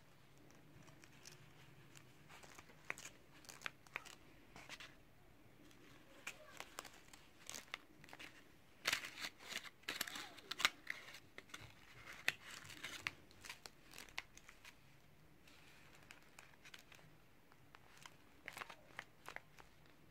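Folded paper puppet being worked by hand: crisp paper crinkling and rustling with scattered sharp clicks, busiest about halfway through.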